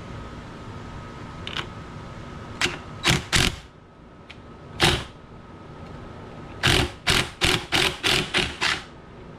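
Socket ratchet clicking in short rasping strokes as the steering-wheel nut is worked loose: a few separate strokes, then a quick run of about seven, roughly three a second.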